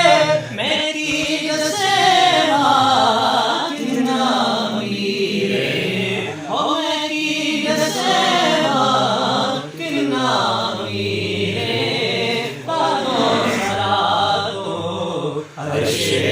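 Islamic devotional singing (naat), voices chanting in long wavering phrases with short breaks between them.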